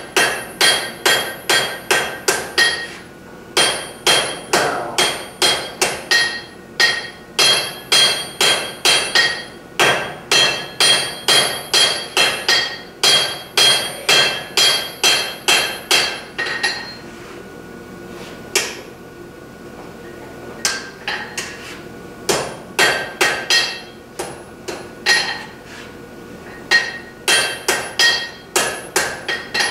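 Hand hammer forging a red-hot wrought iron bar on a steel anvil: runs of quick blows, about three a second, each with a metallic ring. The runs break off for a second or so several times, and there is a longer pause in the middle with one lone blow.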